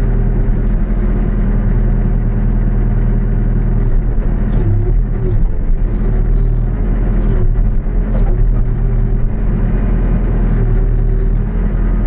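New Holland B95B backhoe loader's diesel engine running steadily, with a few faint knocks and clanks through the middle.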